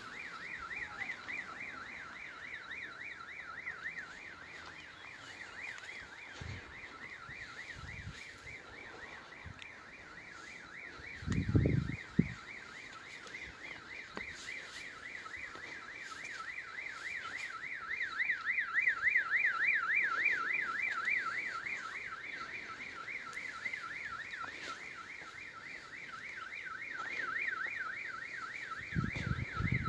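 Electronic alarm, like a car alarm, warbling steadily with a tone that sweeps rapidly up and down in pitch, swelling somewhat past the middle. A couple of low thuds about twelve seconds in and again near the end.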